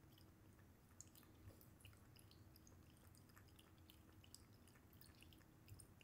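Maine Coon cat lapping water from a pet water fountain: a quick, irregular run of faint, wet tongue clicks.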